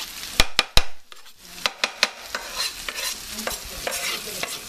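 Diced bacon, apple and onion sizzling in a frying pan while being stirred and scraped with a spatula. Three sharp knocks of the utensil come in the first second, followed by a steady sizzle with many small clicks.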